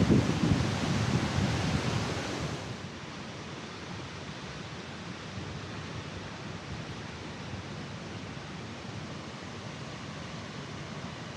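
Steady rushing noise of a large waterfall. It is louder, with low buffeting, for the first two seconds or so, then drops to a quieter, even hiss.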